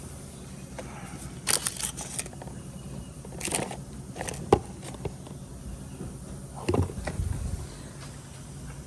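Scattered clicks, taps and rustles of parts and tools being handled, with a sharp click about halfway through, over a steady low hum.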